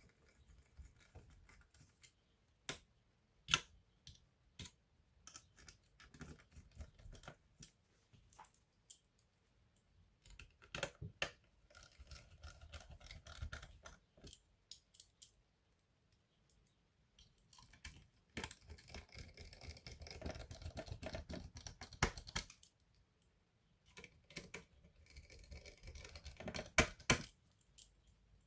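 Asus A42F laptop parts being handled during disassembly or reassembly: scattered sharp clicks and taps of small plastic and metal pieces, with two longer stretches of scratchy rustling.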